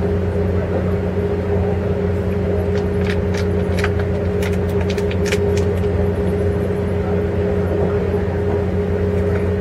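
Steady running rumble and hum inside a moving Amtrak passenger coach, with a few short, faint high clicks or squeaks about three to five seconds in.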